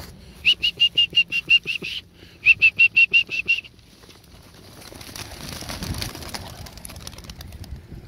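Two quick runs of even, high-pitched beeps in the first few seconds. Then a group of racing pigeons flushes out of a wooden release basket: a rush of wing flapping that swells about five seconds in.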